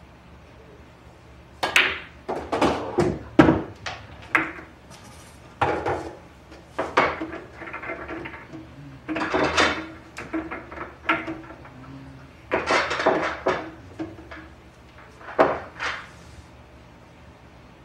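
Pool balls clacking: a string of sharp clicks and knocks as the cue strikes the balls and they collide, starting about two seconds in and stopping shortly before the end, some coming in quick clusters.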